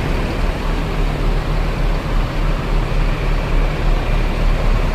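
Bus engine running, a steady low rumble with a haze of road noise over it; no horn sounds.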